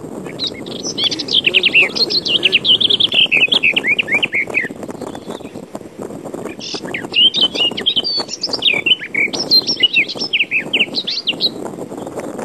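Birds twittering in two long runs of rapid high chirps, with a pause of about two seconds between them, over a steady low background noise.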